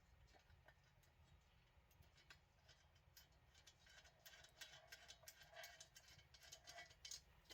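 Faint, scattered small clicks and ticks of a stool caster and its old mounting hardware being handled and fitted, growing busier about halfway through.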